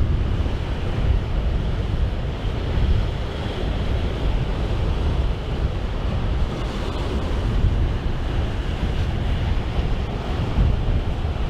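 Strong wind buffeting the microphone: a steady, loud, low rumbling rush with no pitched sound in it.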